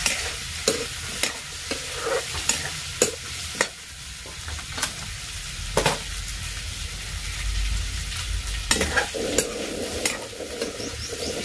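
Potato pieces sizzling as they fry in oil in a kadhai, with a metal spatula scraping and knocking against the pan every second or so as they are stirred.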